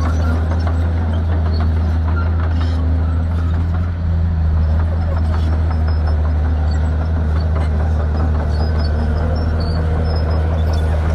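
Shantui bulldozer's diesel engine running at a steady pitch, with light clanking and rattling scattered over it.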